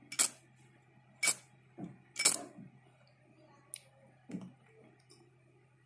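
Flint wheel of a Zippo-style windproof liquid-fuel lighter struck by thumb, giving three sharp metallic scraping clicks about a second apart, then a few fainter clicks as the lighter is handled.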